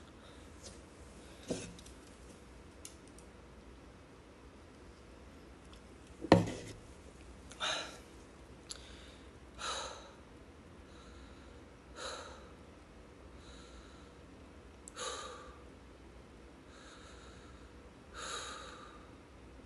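A man's heavy breathing between exercise sets: short, noisy exhales or sniffs every two to three seconds as he catches his breath. A single sharp thump about six seconds in is the loudest sound.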